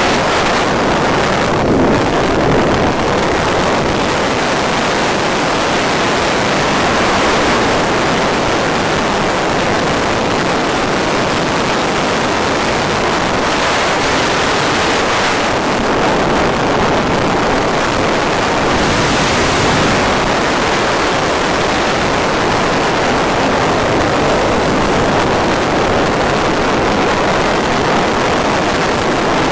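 Steady rushing noise on a model plane's analog FPV audio feed, with slight swells but no motor whine; the plane is gliding with its motor drawing almost no current.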